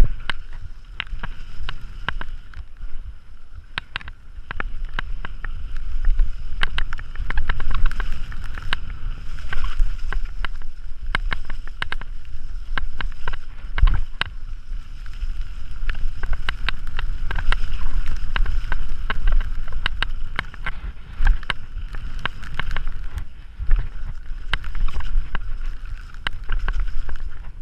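Wind rumbling on the action-camera microphone as a mountain bike rides fast down a rough dirt trail, with frequent sharp clicks and rattles from the bike and camera over the bumps.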